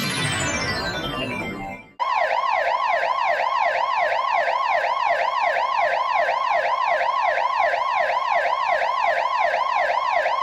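A falling, descending sound effect, then about two seconds in a recorded emergency siren in fast yelp mode, rising and falling about three times a second, which cuts off abruptly near the end.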